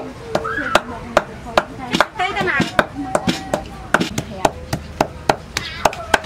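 A cleaver chopping raw pork against a wooden chopping board, mincing the meat by hand in a steady rhythm of about two to three strokes a second.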